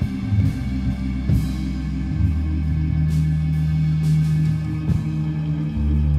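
Live rock band playing loud through amplifiers: bass and electric guitar hold long low notes over drums, with cymbal hits now and then.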